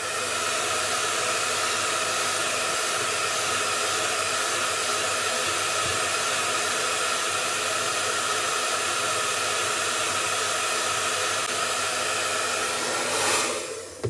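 Handheld electric hair dryer running steadily, a rush of air with a motor whine under it, heating the stuck centre screw of a washing-machine pulsator to loosen it. It swells briefly and then cuts off near the end.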